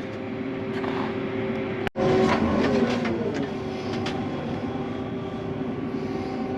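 Combine harvester running and moving off, heard from inside the cab as a steady mechanical whine with several held tones. There is a brief break about two seconds in, then a tone that falls in pitch.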